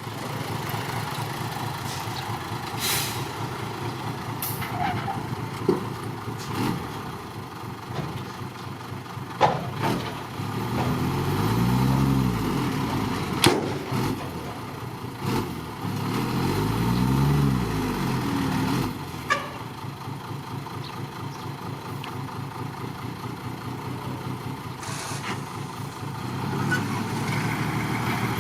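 Heavy diesel earthmoving machinery running steadily, with the engine revving up and back down twice in the middle, among short sharp hisses and clanks.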